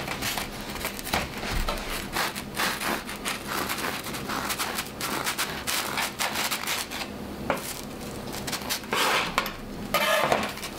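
Serrated bread knife sawing back and forth through a small crusty freshly baked bread roll, a run of short scratchy, crackling strokes as the blade cuts the crust.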